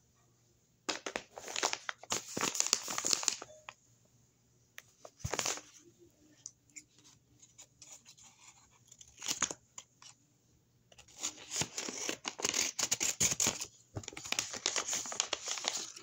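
A hand-made paper blind bag being torn open and crinkled, in rustling bursts: a long one at the start, two short ones in the middle, and a long dense stretch over the last five seconds.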